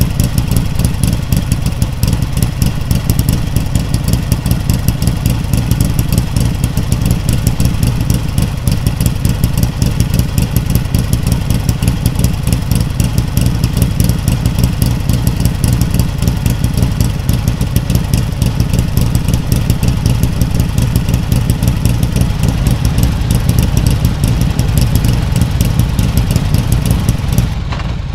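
1971 Harley-Davidson XLH Sportster's Ironhead V-twin idling steadily and loudly, its even, rapid firing pulses heavy in the low end. The owner believes the engine has higher-than-stock compression and more aggressive cams.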